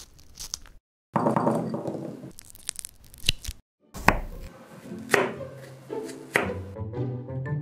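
Knife cutting through hawthorn berries and a strawberry on a cutting board, the blade knocking down onto the board three times about a second apart.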